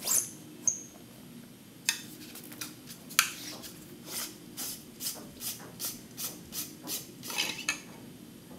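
Hard plastic parts of a YSI sonde being handled: clicks as the gray storage sleeve comes off, then a run of light, evenly spaced ticks, about two or three a second, as the plastic sensor guard is twisted off its threads.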